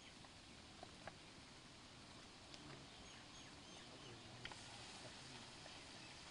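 Near silence: faint outdoor background with a few soft ticks and faint bird chirps.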